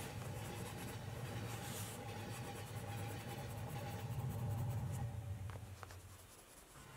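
Coloured pencil scratching and shading on sketchbook paper, over a low steady hum that fades away near the end.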